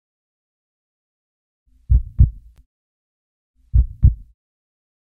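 Heartbeat sound effect: a deep double thump, lub-dub, comes about two seconds in and repeats a little under two seconds later.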